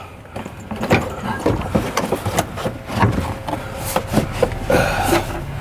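Irregular knocks, clicks and scraping rustle from car interior parts being pulled up and handled inside a stripped car.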